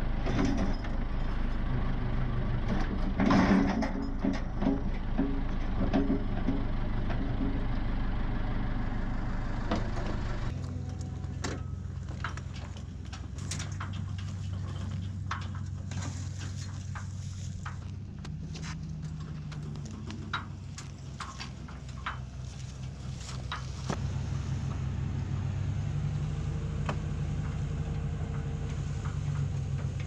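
Backhoe engine running steadily, with metal clanks and rattles in the first ten seconds or so. After that the engine note changes and is quieter, with scattered ticks and knocks.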